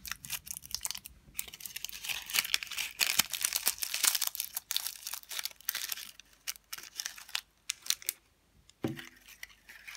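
Dry onion skins crackling and rustling as hands press them around a string-wrapped egg to dye it: a rapid run of crisp crackles that stops well before the end.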